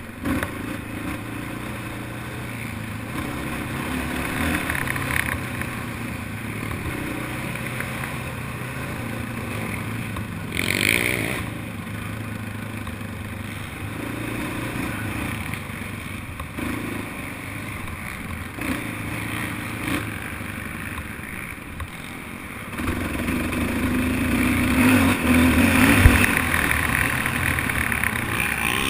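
Racing quad ATV engines running and revving. There is a brief sharper burst about eleven seconds in, and the engine sound grows louder about two-thirds of the way through.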